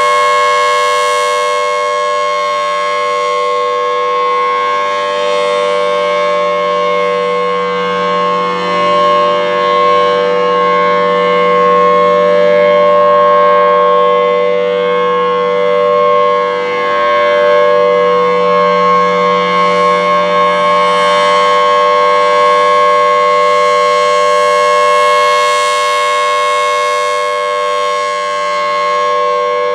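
Federal Signal Thunderbolt 1000T outdoor warning siren sounding its steady Alert tone, a loud held pitch that slowly swells and fades in loudness. The chopper is set on level 3, giving it a slightly lower pitch.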